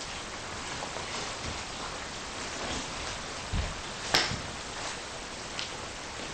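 Steady hiss of room tone in a quiet, empty space, with a faint low thud a little past halfway, followed by a sharp click.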